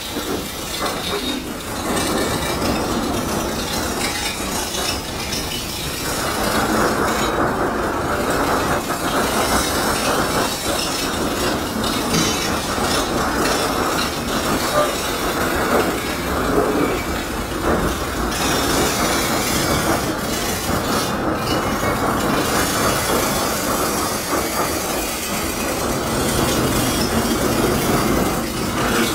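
Freight train coal gondolas rolling past at close range: a steady, dense noise of steel wheels running on the rails.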